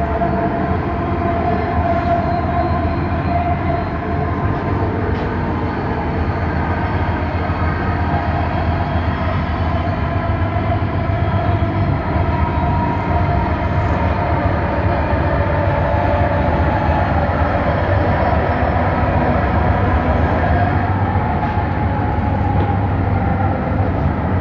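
Bombardier Innovia Metro 300 train running at speed, its linear induction traction motors giving a steady whine over the rumble of the running gear, the pitch drifting slowly up and down.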